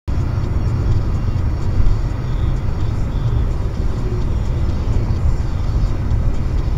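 Steady low rumble of a car driving at highway speed, heard from inside the cabin: engine and tyre noise picked up by a dashcam.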